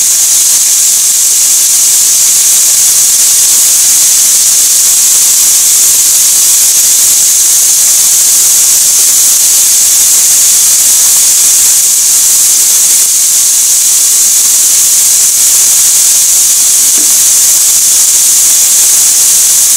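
Chicken pieces sizzling in a frying pan on high heat: a loud, even hiss that holds steady throughout.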